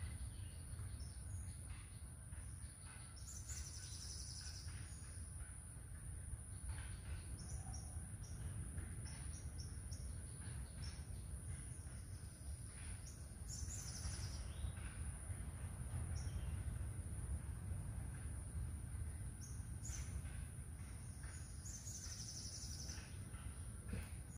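Outdoor rural ambience: a steady high-pitched insect drone, with birds chirping in short bursts three times, about four seconds in, near the middle and near the end, over a low rumble.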